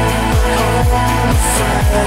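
Electronic dance music with a steady kick drum about twice a second under sustained synth chords.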